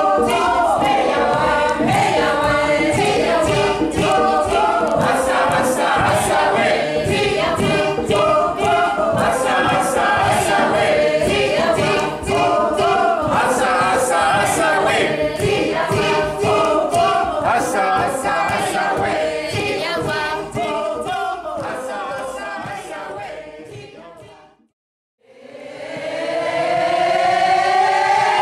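Many voices singing together in chorus over a steady percussive beat, fading out a little before the end. After a short silence, the voices rise together in one long upward glide.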